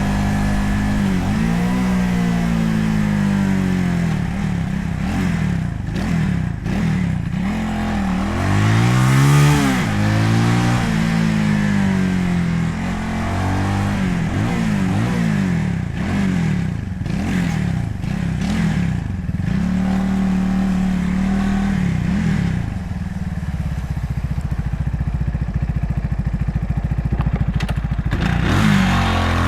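Motorcycle engine at riding speed, picked up by a handlebar-mounted camera's built-in mic with wind reduction on. The revs climb and drop again and again as the bike accelerates and shifts gears, then hold steadier before climbing again near the end, under a haze of road and wind noise.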